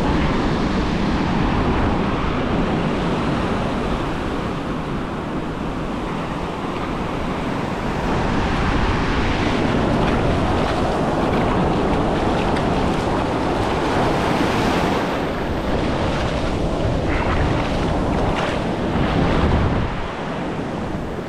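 Ocean surf breaking and washing in shallow sheets of foam over the sand, swelling and easing in steady rushes, with wind buffeting the microphone.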